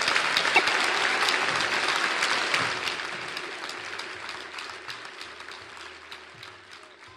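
Audience applause, a dense patter of clapping that fades away over the second half.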